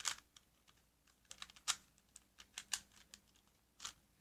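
Scattered light clicks and taps at an uneven pace, about a dozen, the first the loudest.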